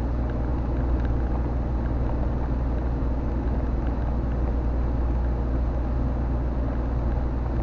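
Volvo FMX truck's diesel engine and road noise heard from inside the cab while cruising, a steady low drone with no change in pitch.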